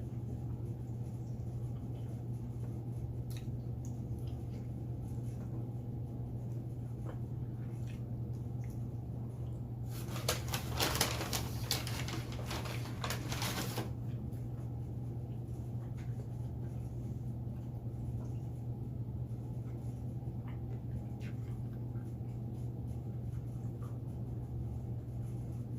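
Quiet eating sounds from a meal: scattered small clicks and taps over a steady low hum. About ten seconds in there is a burst of dense crackling that lasts about four seconds.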